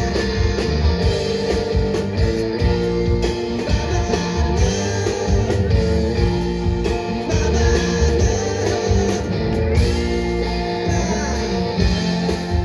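A band playing an instrumental passage of a song live, led by guitar over bass and drums.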